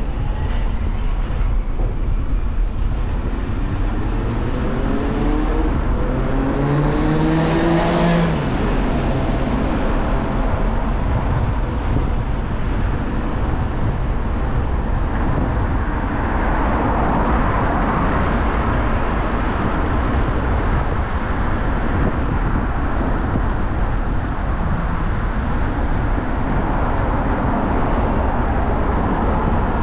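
Road traffic running close by over a steady low rumble. For the first several seconds one vehicle's engine rises in pitch as it accelerates, then drops away. Later a broader whoosh of traffic passing swells and fades.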